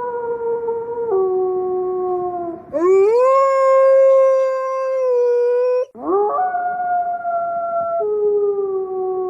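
Wolf howls, long and drawn out: one howl drops in pitch and fades, a second rises and holds a high note for about three seconds before cutting off abruptly, and a third rises and then steps down in pitch.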